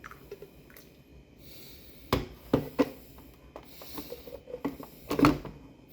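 A few sharp knocks and clatters from kitchen things being handled, with light scraping between them; the loudest knock comes about five seconds in.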